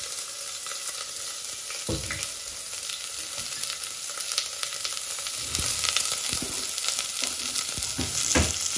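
Freshly chopped onions sizzling in hot olive and vegetable oil in a stainless steel pan, a steady frying hiss, with a couple of knocks against the pan, about two seconds in and near the end.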